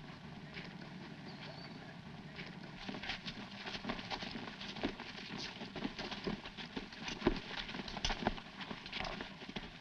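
Footsteps of a column of marching soldiers on dirt, an irregular scuffle of steps that grows louder from about three seconds in as the column comes closer, over a faint steady hum.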